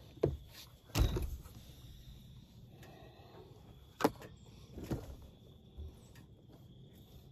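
Several knocks and bumps on a four-wheeler's rear rack as a dead doe is shifted into place on it, the loudest about a second in and another sharp one about four seconds in.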